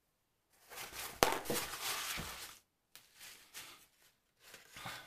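Paper towel rustling and crinkling in a few bursts as paint is wiped off a brush, with one sharp tap about a second in.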